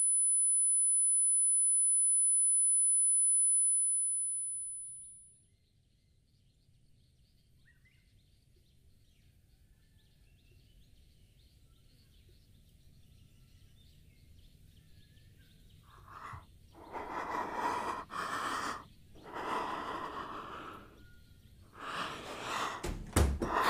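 A steady high-pitched ringing tone fades away over the first few seconds, leaving a long stretch of near silence. Near the end, a person takes several loud, breathy gasps.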